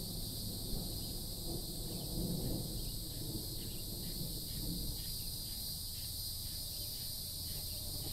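Steady, high-pitched chorus of insects droning without a break, over a low rumble of wind on the microphone.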